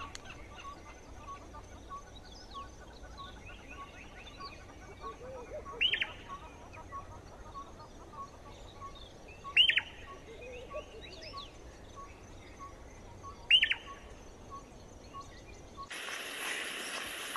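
Birds calling in dry bush: three loud, short calls a few seconds apart over fainter chirps and a repeated pip about twice a second. Near the end a steady hiss takes over.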